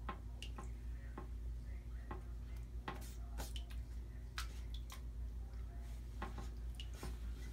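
Bengal kitten pawing at shallow bathwater: irregular small pats and splashes, about a dozen spread over several seconds, over a steady low hum.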